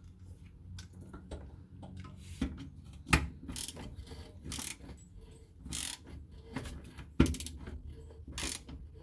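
Ratchet wrench clicking in repeated short strokes as a rusted, seized bolt is slowly backed out with a bolt extractor socket. Two sharp metallic knocks come about three seconds in and again near seven seconds.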